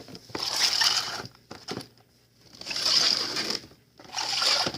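Firework packages being handled and shifted: three rustling, scraping passes of about a second each, with short pauses between them.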